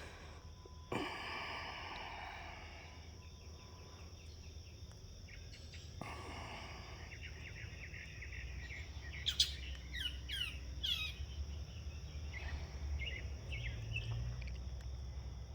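Birds calling outdoors at dawn: a raspy call about a second in, then a run of quick, high, downward-sliding chirps around the middle and fainter chirps after, over a low steady rumble.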